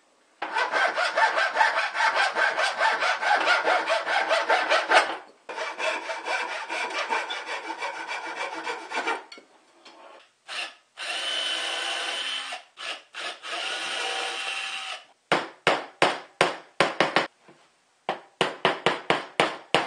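Hand saw cutting thin wooden dowels in quick back-and-forth strokes, in two runs. Near the end a hammer knocks repeatedly on a wooden 2x2 board, about four blows a second.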